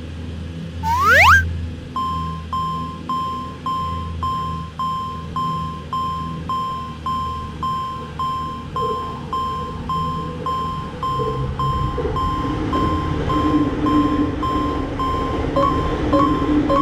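A short rising swoop about a second in, then a Japanese railroad crossing alarm starts ringing its repeated electronic 'kan kan' bell, about three strikes every two seconds. A lower humming tone builds in under it in the second half.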